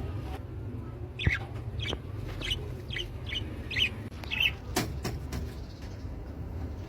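Pet parrot chirping: a run of about seven short chirps, roughly two a second, with a couple of sharp knocks over a steady low rumble.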